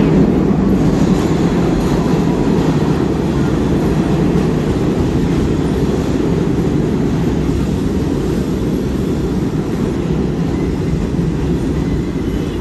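New York City subway train pulling into the station on the track beside the platform: a loud, steady low rumble of wheels and motors that eases slowly as the train slows.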